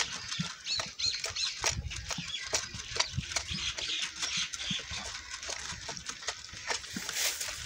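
A calf suckling milk from a goat's udder: irregular wet sucking and smacking clicks, several a second.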